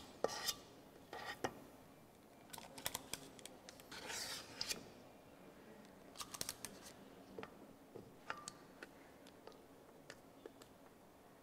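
Metal portion scoop scraping thick muffin batter from a stainless steel mixing bowl, with sharp metallic clicks as scoops are released into the paper-lined muffin tin. The scraping comes in short strokes over the first few seconds, with clicks spread through the rest.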